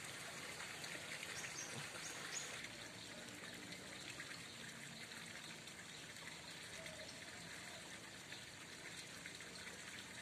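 Faint, steady trickling water.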